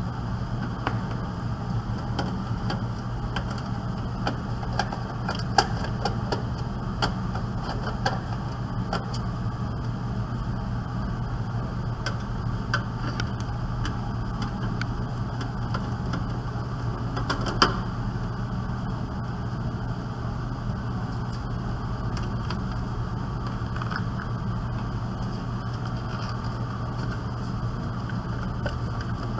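Scattered small metallic clicks and clinks as screws and parts of a desktop computer case are handled during removal of the motherboard, over a steady low hum. Two clicks stand out, about 6 and 18 seconds in.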